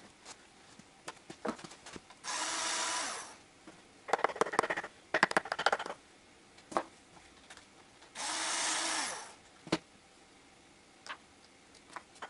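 Small metal engine parts and hand tools clinking and clattering on a wooden work board, with a dense run of rapid clicks in the middle. Twice, a whirring noise lasts about a second and winds down as it ends.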